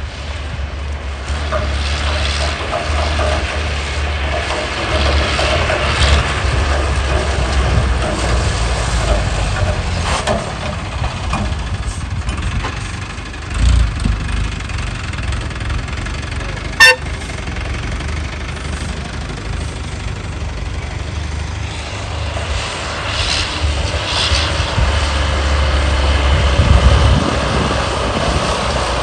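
A motor vehicle on the move: steady low engine and road rumble, with a thump about 14 seconds in and a sharp click about three seconds later.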